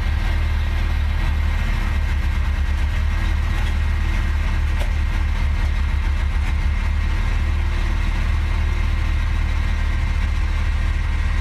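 Motor vehicle engine running steadily with a low, even drone.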